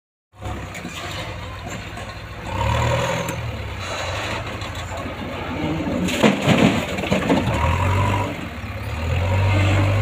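Diesel engines of a JCB backhoe loader and a Swaraj tractor running, the engine note swelling louder several times. About six seconds in, earth and rubble dumped from the loader's front bucket clatter into the tractor's steel trolley for a second or so.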